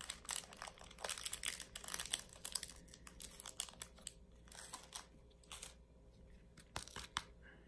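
The crinkly cover sheet over a diamond painting canvas is folded and handled, giving dense crackling and rustling over the first few seconds. Scattered light clicks and taps follow.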